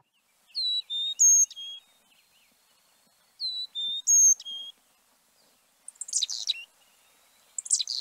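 Carolina chickadee singing its four-note whistled song twice, clear notes alternating high and low, then giving two buzzy chick-a-dee-dee-dee calls.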